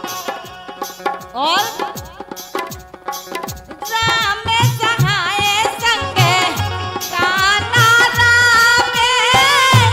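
Kartik geet folk song: tabla and other accompaniment play alone at first, then a woman's voice comes in singing about four seconds in, with the tabla beating under it.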